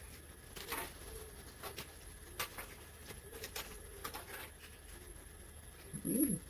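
Light, scattered clicks and taps of monitor parts being handled during disassembly, with a brief wavering tone about six seconds in.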